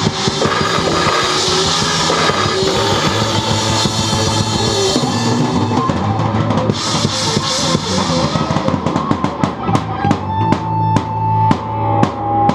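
Drum kit played along with a recorded rock song: bass drum, snare and cymbals. In the last few seconds the hits become sharp and evenly spaced, with a long held note ringing over them.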